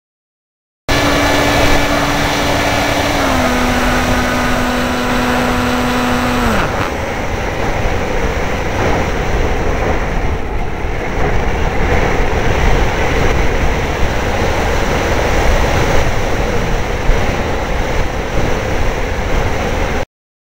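Onboard audio from a HawkSky electric RC plane: the motor's steady whine steps down slightly about three seconds in, then winds down and stops about six seconds in, cut for the landing approach. Wind rushes over the plane as it glides for the rest of the time, until the sound cuts off suddenly near the end.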